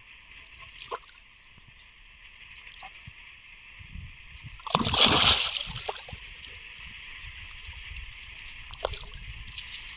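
Water splashing: one loud splash about five seconds in that lasts around a second, with smaller sloshes around it, over a steady high hiss in the background.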